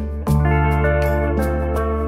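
Background music: an instrumental with changing pitched notes over a deep bass note that comes in about a quarter of a second in.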